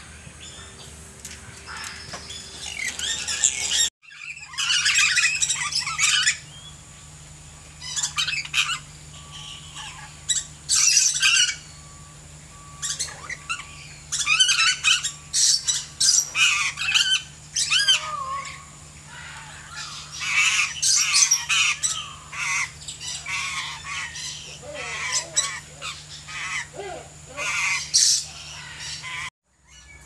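Lories (captive parrots) screeching: loud, harsh squawks in repeated bursts of a second or two, with short pauses between them.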